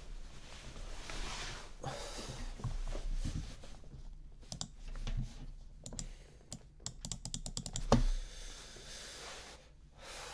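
Typing on a computer keyboard: scattered key clicks, with a quick run of them in the middle, and one louder thump about eight seconds in.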